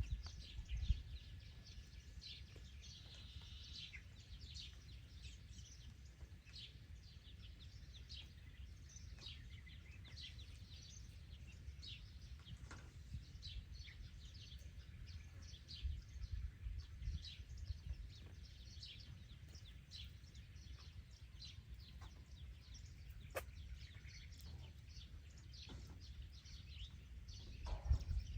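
Birds chirping, many short high chirps overlapping, with a few low rumbles in between.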